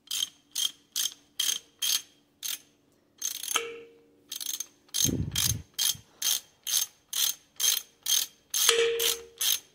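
Small hand ratchet clicking in steady strokes, about two clicks a second, as it backs out the threaded wrist-pin access plug in a Subaru flat-four engine block. The clicking pauses briefly about three and a half seconds in, and a dull thump comes around five seconds.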